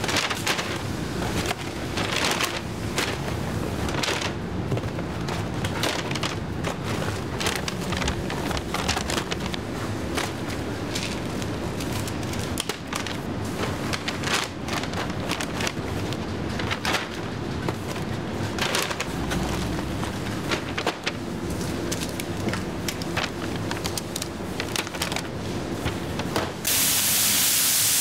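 Takeaway packing at a counter: a paper bag rustling and cardboard burger boxes being handled and set down, many small clicks and knocks over a steady low hum. Near the end it cuts abruptly to a loud, steady hiss of steam rising off a hot griddle.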